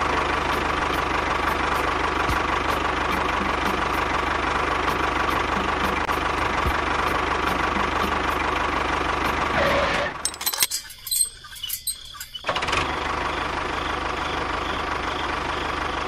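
Motorised toy tractor running with a steady engine-like drone and a faint regular ticking. It cuts out for about two seconds near the middle, then runs again.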